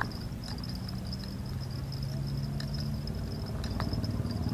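Insects chirring in a steady, high, pulsing trill, over a low steady hum that fades out near the end.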